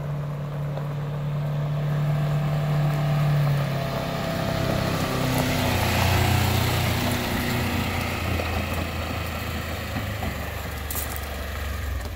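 Polaris Ranger XP 1000's twin-cylinder engine running as the side-by-side drives past towing a heavy trailer over gravel. Its engine note drops in pitch about four seconds in and settles lower, with a rush of tyre and gravel noise as it passes close about six seconds in.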